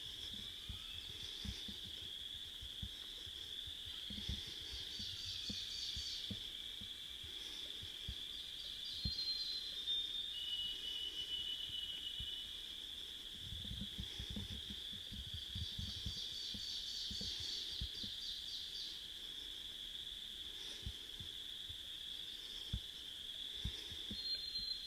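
Outdoor night chorus: a steady high-pitched drone with trilling calls rising over it twice and a few short whistled notes, plus scattered low thumps.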